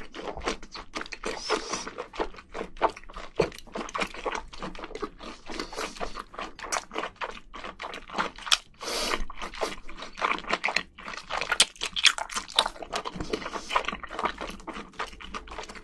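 Close-miked mouth sounds of a person chewing spicy braised seafood: a quick, irregular run of short clicks and smacks.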